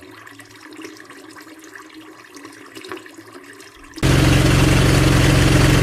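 Water from a hose running faintly into a floor-trap drain. About four seconds in, a Honda petrol engine on a drain water-jetting machine comes in much louder, running steadily.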